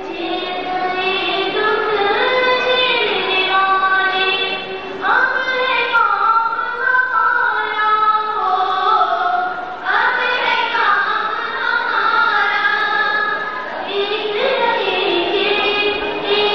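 A song sung by a woman's high voice over music, with held, melodic notes.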